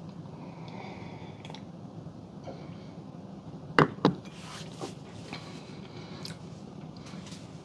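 Glass beer mug set down on a granite counter: two sharp knocks close together about four seconds in, over quiet room tone.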